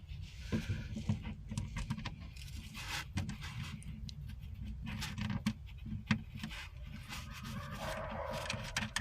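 Small metal hardware and tools clinking and scraping in irregular light clicks as rod holder assemblies are fitted to the boat, over a steady low hum.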